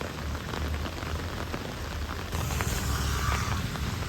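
Steady rain falling, an even hiss with a low rumble underneath. A little over two seconds in, the hiss grows louder.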